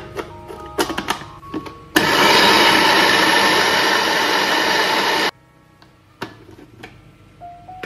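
Small electric food chopper grinding rolled oats into flour: a few plastic clicks as the lid is fitted and pressed, then the motor runs loudly for about three seconds and stops abruptly, followed by a couple of clicks.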